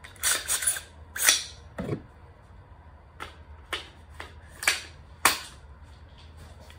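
Clicks and knocks of an AR-15 rifle and its plastic stock being handled: a quick cluster in the first two seconds, then five single sharp clicks about half a second apart.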